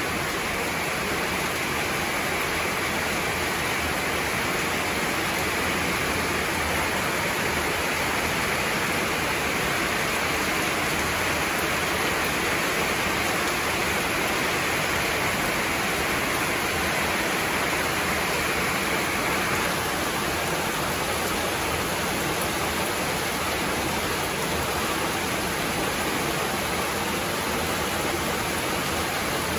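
Heavy rain pouring steadily, a dense even hiss. A brighter edge in the hiss falls away about two-thirds of the way through.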